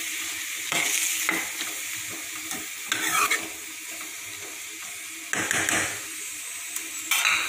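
Metal ladle stirring and scraping cabbage around a metal kadai, four louder scrapes against the pan, over a steady sizzle of the cabbage frying in oil with water just poured in.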